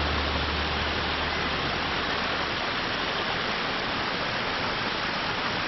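Steady rush of a mountain stream pouring over rocks and down a mill flume.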